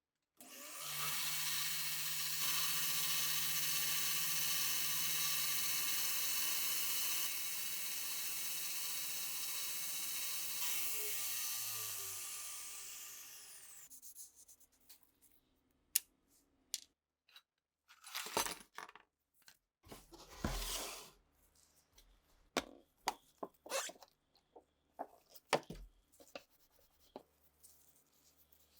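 An electric power tool's motor runs steadily for about ten seconds, then is switched off and winds down with falling pitch. After that come scattered clicks and knocks.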